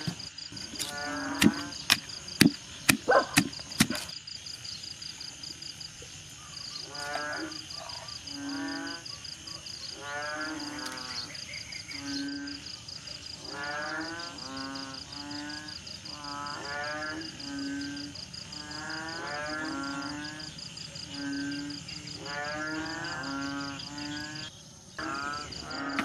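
A wooden pestle pounds in a wooden mortar, about eight sharp knocks in the first four seconds. After that a pitched sound repeats about every second and a half, over a steady, high, pulsing hum.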